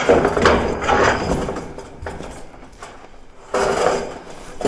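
Scraping and rustling of a roofing sheet being handled and dragged into place on a roof. The noise is busiest in the first second or so, dies down, and comes back briefly near the end.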